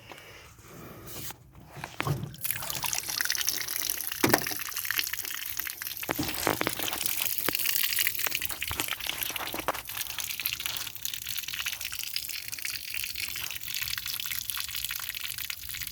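Water gushing and splashing steadily into a 1432 jon boat hull as it is flooded to test for leaks. The flow swells in about two seconds in, with a sharp knock a couple of seconds later.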